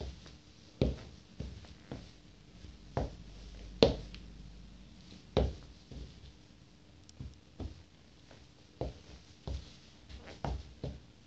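Rubber-soled Nike Air Force 1 sneakers stepping on a wooden floor: about a dozen irregular soft thuds, the loudest about four seconds in.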